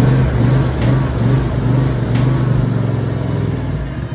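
Cobra LT102HR2L lawn tractor's single-cylinder engine running on choke moments after a cold start. The note wavers slightly and eases a little toward the end.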